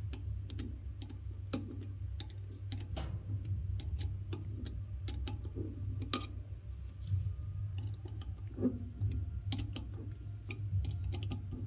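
Irregular light metallic clicks and taps from handling a Blackhawk 1/2-inch thin-profile ratchet head while its screws are tightened, over a steady low hum.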